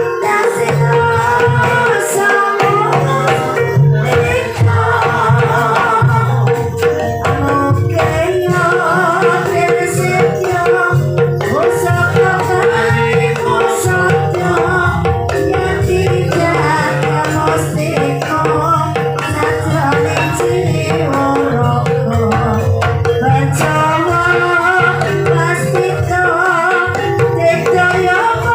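Javanese gamelan music for an ebeg dance: kendang hand drums play a busy steady rhythm over a sustained metallic tone, with a voice singing a wavering melody.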